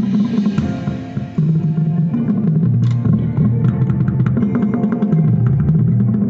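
Marching band playing a loud passage, sustained low notes over heavy drum and percussion hits. It jumps louder about a second and a half in, and the percussion gets busier after that.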